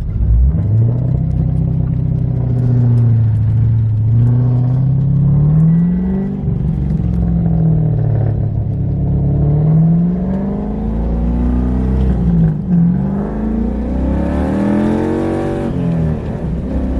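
6.2-litre V8 car engine accelerating hard through the gears, its pitch climbing and then dropping at each shift, about three times.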